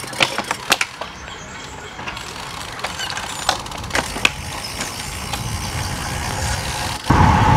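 Several sharp clicks, bunched in the first second and a few more about halfway through, from road-bike cleats snapping into clipless pedals as riders push off. About seven seconds in, a loud wind rumble on the microphone takes over as the bike gets moving.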